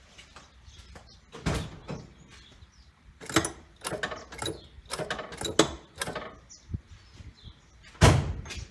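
Irregular knocks, clicks and clunks from a stationary car with its engine off, the loudest clunk about eight seconds in.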